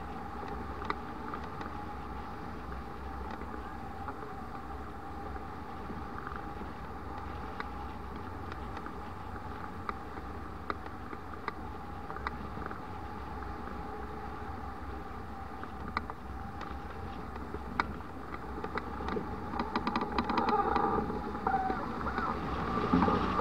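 Wind rushing past a hang glider in flight and buffeting the mounted camera's microphone. There is a steady low rumble with a faint steady tone and scattered light ticks. It grows louder and wavers in the last few seconds as the glider banks.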